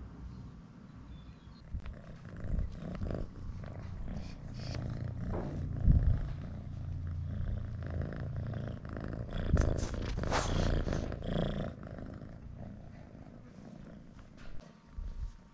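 Cat purring with a steady low rumble close to the microphone, with a few handling thumps and rustles, the loudest thump about six seconds in.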